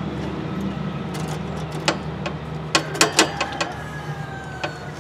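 A few scattered sharp clicks and knocks of a new ground drive belt being threaded by hand around the pulleys and metal brackets under a lawn tractor, over a steady low background hum.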